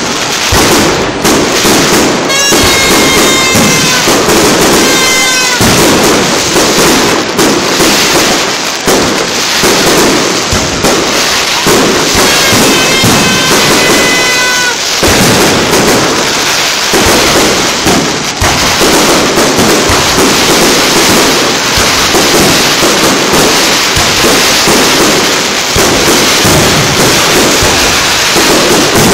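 Fireworks display: a loud, continuous barrage of shell bursts and crackling. Twice, a few seconds at a time, a held, slightly falling pitched tone sounds over the bangs.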